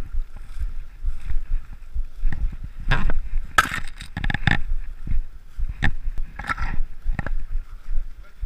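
Footsteps pushing through dry bracken, long grass and young pine branches, with a run of sharp swishes and scrapes between about three and seven seconds in as branches brush past, over a low rumble of wind and movement on the microphone.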